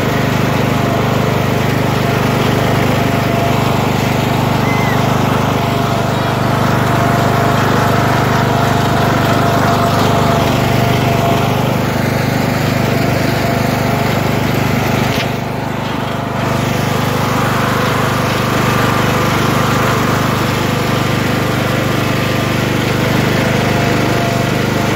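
Riding lawn mower engine running steadily under way, an even drone throughout.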